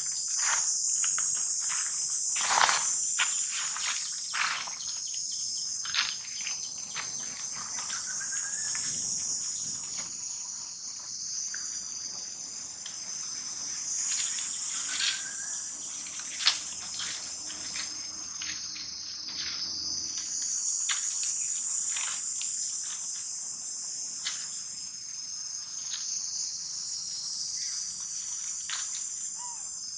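Steady high-pitched insect chorus that swells and eases, with scattered snaps and rustles from dry leaf litter, a few of them sharp.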